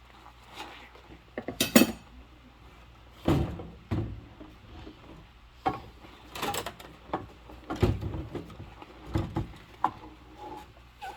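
Dishes and cutlery being handled during washing up, with irregular clinks and knocks of crockery and utensils against each other; the loudest clink comes about two seconds in.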